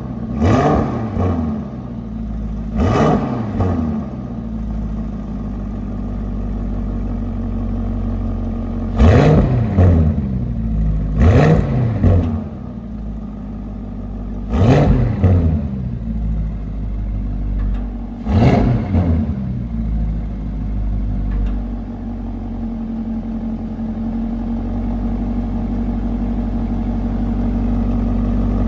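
Lamborghini Urus Performante's twin-turbo V8 heard at the exhaust tips, idling and blipped six times in quick short revs that rise and fall straight back, then settling into a steady idle for the last ten seconds or so.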